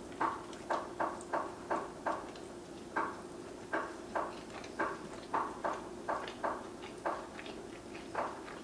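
Close-miked chewing of a big mouthful of chicken sandwich on a bun: short, regular chewing sounds about two or three times a second, with brief pauses.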